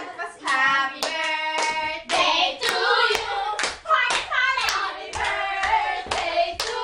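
Several voices singing together, with sharp hand claps at irregular moments.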